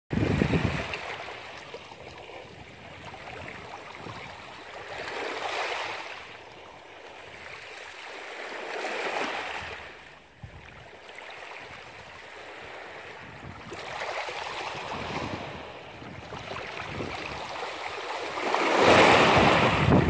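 Small waves washing in over shallow rocks, a steady splashing hiss that swells and ebbs every four seconds or so, with the loudest surge near the end. A brief low rumble comes right at the start.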